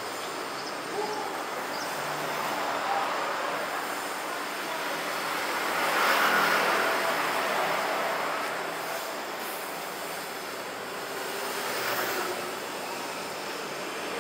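City street traffic: the noise of motor vehicles passing along the road swells about six seconds in and again near the end.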